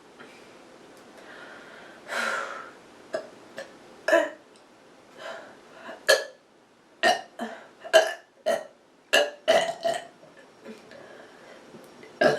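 A person burping from a full stomach: one longer burp about two seconds in, then a run of short, sharp burps in quick succession.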